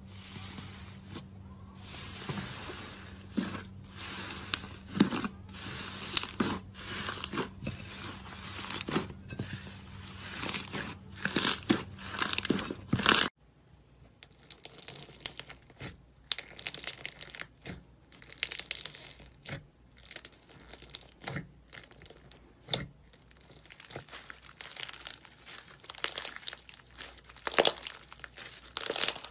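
Hands pressing and squeezing thick slime, giving irregular crackling and popping clicks as air pockets burst. About 13 seconds in it changes to a slime packed with foam beads, pressed in its tub and then stretched, with sharper crunchy crackles.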